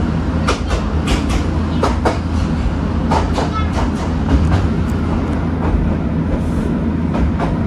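Choshi Electric Railway 2000-series electric train running, heard from inside the car: a steady low rumble from the motors and wheels, with repeated sharp clacks of the wheels over rail joints.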